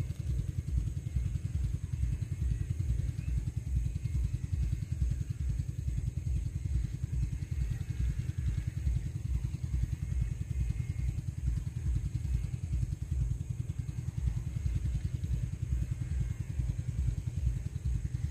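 A small engine running steadily, with a fast, even low pulse and no change in speed.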